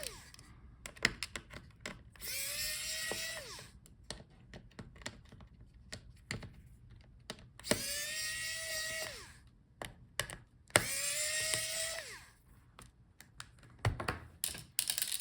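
Electric precision screwdriver backing out the laptop battery's small screws: three short whirring runs, each rising in pitch as it spins up and dropping as it stops, with light clicks and taps of the bit, screws and handling in between.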